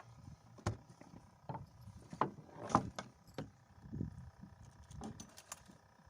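Irregular knocks and rattles from a small fishing boat at sea, a few a second at most, over a low rumble and a faint steady hum.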